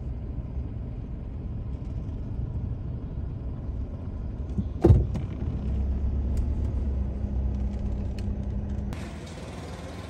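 Road traffic: car and motorbike engines running under a low rumble, with one sharp knock about five seconds in and a steadier engine hum for a few seconds after it.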